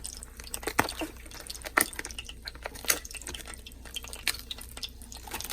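Chicken frying in oil in a pan: a faint sizzle with irregular sharp pops and crackles, about one a second.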